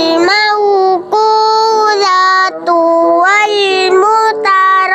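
A child's voice chanting Qur'an recitation (tilawah), drawing each syllable out into long, melodic held notes that bend up and down in pitch. There are four such notes of about a second each, with short breaks between them.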